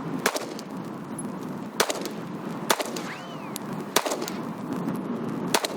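Five 9mm pistol shots fired one at a time at uneven spacing, about a second or so apart, over steady wind noise. A short rising-and-falling whine follows the third shot.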